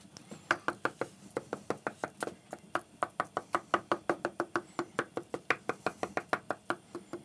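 Kitchen knife chopping hard-boiled egg whites on a wooden cutting board: fast, even knocks of the blade on the board, about six a second, stopping near the end.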